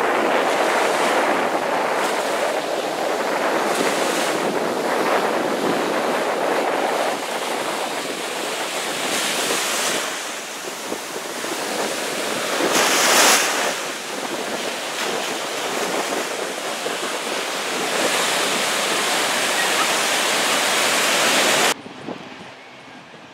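Ocean surf breaking and washing up the beach in a steady rush, with wind buffeting the microphone; one wave breaks louder about halfway through. Near the end the surf cuts off abruptly to a much quieter background.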